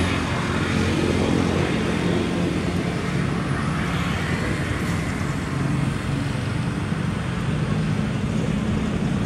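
Steady running of an engine or motor, a low hum under a constant rushing noise.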